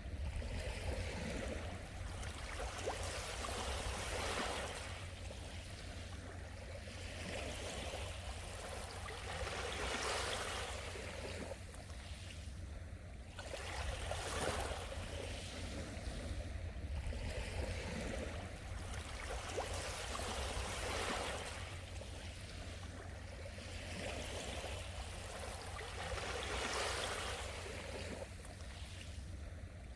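Small sea waves washing and lapping on the shore, swelling and fading every two to three seconds, over a steady low rumble.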